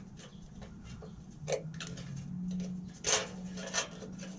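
Small clicks and taps of a fish tape and wire being handled and twisted together at a hole in a steel chassis frame, with the sharpest clicks about one and a half and three seconds in, over a steady low hum.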